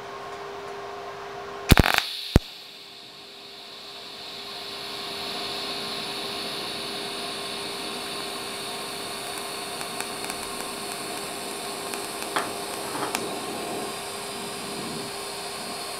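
TIG welding arc on a metal tube. A couple of sharp cracks about two seconds in as the arc starts, then a steady hissing buzz that grows louder over the next few seconds and holds while filler rod is fed in.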